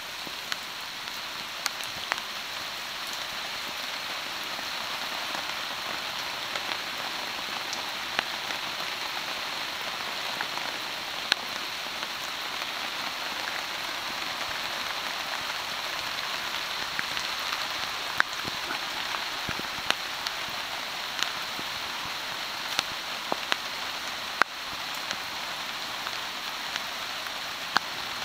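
Steady rain falling on a canvas poncho-tarp shelter (a waxed Soviet Plash Palatka rigged over a tarp), a constant hiss with scattered sharper drops striking the canvas.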